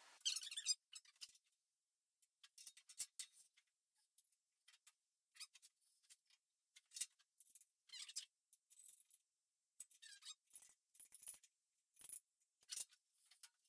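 Faint, irregular metallic clicks and scrapes of a hand tool working the adjustment screws of a sliding table saw's rip fence.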